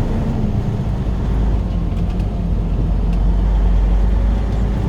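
Semi-truck diesel engine running steadily, a low drone with a constant pitch.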